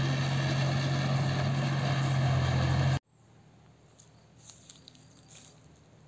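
John Deere tractor's diesel engine running steadily under load while driving a paddy straw baler, with a strong low hum. It cuts off abruptly about halfway through, leaving a faint background with a few soft ticks.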